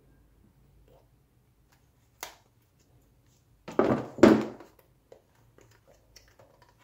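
Handling noise from a small cardboard box and plastic-bagged parts: a short click a little after two seconds, then a brief loud rustle and scrape about four seconds in, followed by a few faint taps.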